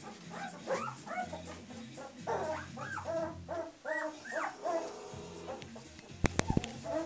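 A litter of young puppies yipping, whining and squealing as they play-fight, many short high cries rising and falling and overlapping. Near the end there is a quick run of about four sharp knocks.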